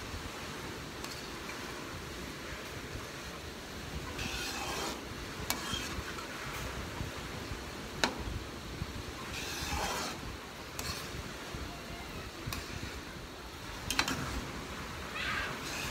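Metal spoon stirring and scraping through bubbling glutinous rice in a wide metal pan. Sharp knocks of the spoon against the pan come about 5, 8 and 14 seconds in.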